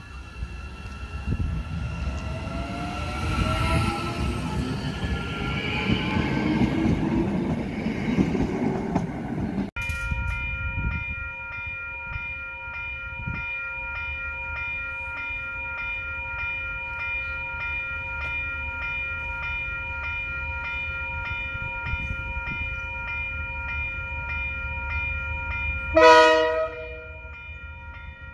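A Matangi FP-class electric multiple unit pulls away, its traction motors whining upward in pitch. After a cut, a level-crossing alarm rings steadily, and near the end a DL-class diesel-electric locomotive gives one short, loud blast of its horn as it approaches.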